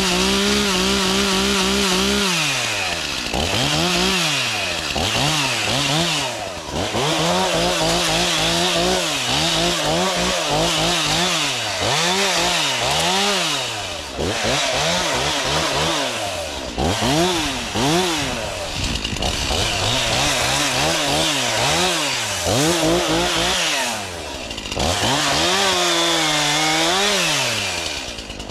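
Gas chainsaw running high and steady at first, then revving up and dropping in pitch again and again as it cuts through dry windfall wood.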